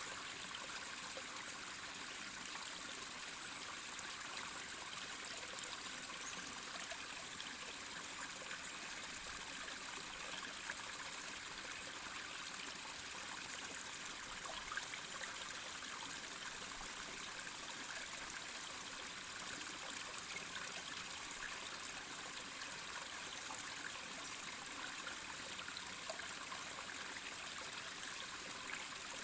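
Mountain stream flowing steadily over rocks, with a continuous trickling, splashing rush of water.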